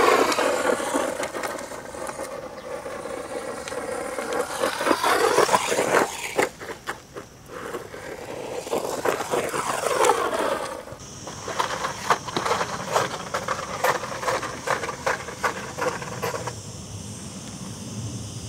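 Brushed 550 electric motor and gearing of an RC monster truck whining up and down in pitch with the throttle, tyres scrabbling and crunching over loose gravel. In the second half, many short knocks as the tyres climb over the log slats of a wooden ramp.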